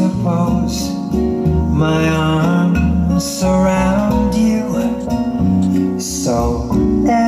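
Song playing back through a hi-fi amplifier and speakers: an instrumental stretch led by plucked acoustic guitar, with no sung words.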